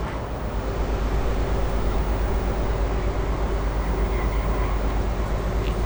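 Steady low rumble of a running vehicle or machinery, with a faint steady hum over it.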